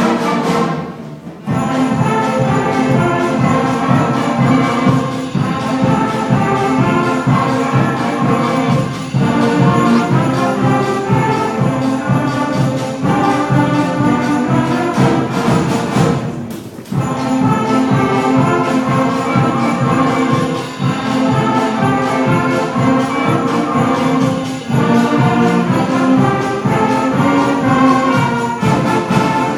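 Middle school instrumental ensemble playing a piece with sleigh bells jingling. The music briefly drops out about a second in and again just past the middle.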